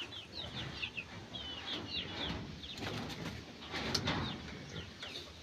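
A flock of two-month-old layer pullets peeping, many short high chirps overlapping throughout, with a brief click about four seconds in.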